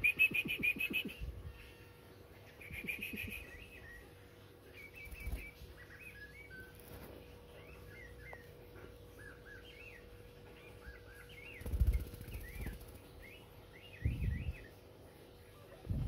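Tame sooty-headed bulbul chirping: a long string of short, quick chirps. Two harsh buzzy bursts come first, and a few dull thumps fall among the chirps.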